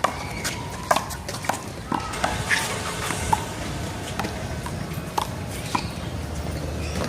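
Small rubber handball being slapped by hand and bouncing off the wall and the pavement during a one-wall handball rally: about ten sharp smacks at uneven intervals.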